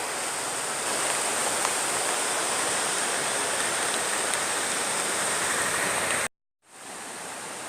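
Steady rushing of flowing water, like a stream. It breaks off for a moment about six seconds in and comes back quieter.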